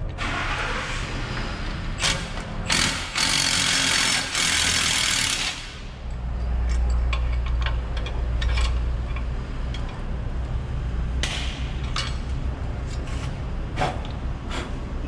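Power tool working the nuts off an old sway bar end link: a loud hissing burst a few seconds in, then a steadier low-pitched run, followed by scattered metal clicks and knocks.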